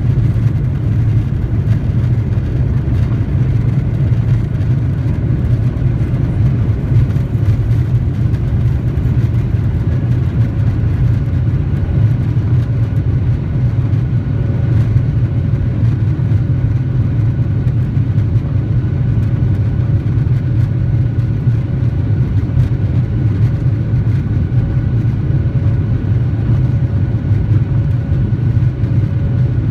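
Boeing 737-900ER's CFM56-7B jet engines running steadily: a loud, even low rumble, with faint steady whine tones coming up about a third of the way in.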